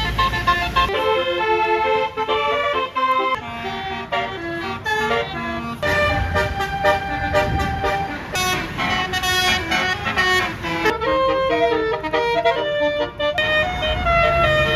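A bus's Basuri telolet air horn playing a melody, note after note in quick steps, over the low rumble of the bus engine.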